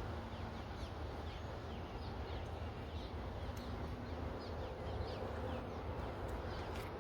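Small birds chirping, short falling chirps repeated about once or twice a second, over a steady low rumble.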